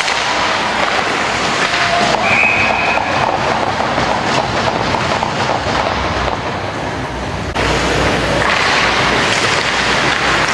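Ice hockey rink ambience on a camcorder microphone, a steady noisy wash of crowd and skating, with a short referee's whistle about two seconds in.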